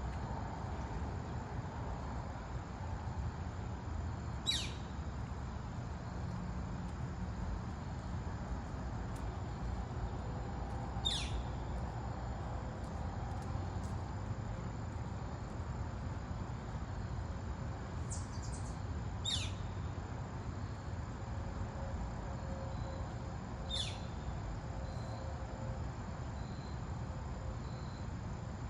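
A bird calling: four short, sharp, down-slurred high calls several seconds apart, over a steady low background noise.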